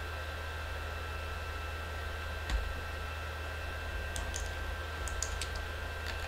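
A few sharp computer mouse and keyboard clicks: one with a dull thump about two and a half seconds in, then a cluster of quick clicks a second or so later. They sit over a steady low hum and hiss.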